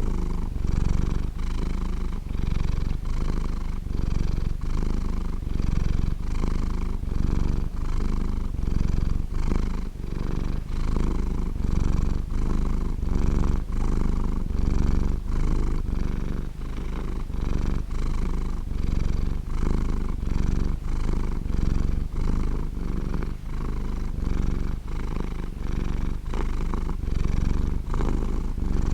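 Domestic cat purring steadily, a warm, round purr with a low rumble that swells and eases in a regular rhythm with each in-and-out breath.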